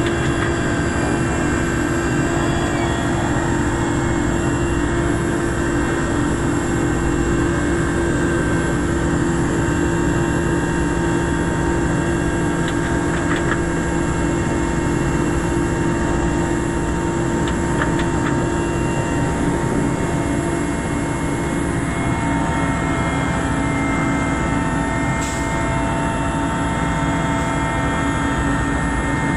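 Helicopter turbine engines and rotor heard from inside the cockpit: a steady whine and drone, its main tone dropping slightly in pitch about two-thirds of the way through.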